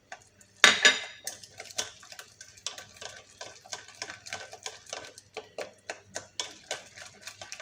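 A utensil clatters against a saucepan about a second in, then taps and scrapes in a quick, uneven run of light ticks as butter is stirred into hot, freshly thickened lemon pastry cream.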